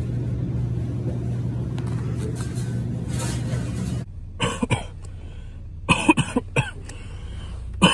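A steady low hum, then, after an abrupt change about halfway through, a man coughing in short bursts, two clusters of several coughs, after a drag of smoke.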